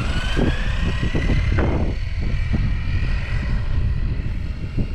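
Brushless electric motor of an Arrma Big Rock 3S RC truck whining as the truck accelerates away, rising in pitch for the first second and a half, then steadier and fainter. Heavy wind noise rumbles on the microphone throughout.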